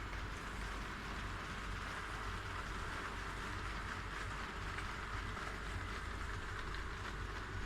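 HO scale model train running on the track: a steady rolling rumble with the hum of its motor, even and unbroken.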